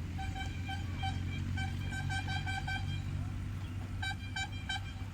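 A vehicle horn tooting in many short, quick beeps of one pitch, in two runs, over the steady low hum of a running engine.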